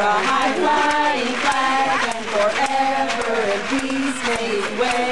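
Several voices singing together in a chant-like song, with held, wavering notes overlapping.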